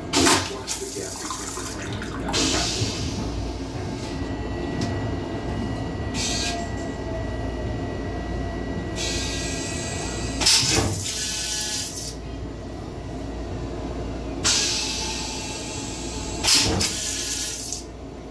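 Metro-North M7 railcar toilet flushing: repeated bursts of water hissing into the stainless steel bowl, a few seconds apart, over the steady low rumble of the moving train.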